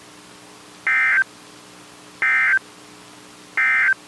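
NOAA Weather Radio's end-of-message data code: three short, identical bursts of shrill digital warbling, one about every 1.4 seconds. They mark the close of the warning broadcast and run over a faint steady hum.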